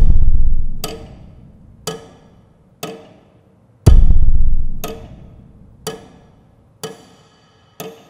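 Intro music built on percussion: a sharp tick about once a second, with a deep booming drum hit at the start and another about four seconds in, each dying away over a second or so.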